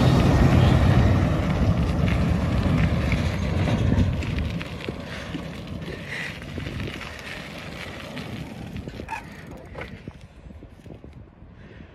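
Wind buffeting the phone's microphone while riding a bicycle, loudest in the first few seconds and then dying down, with a few light clicks near the end.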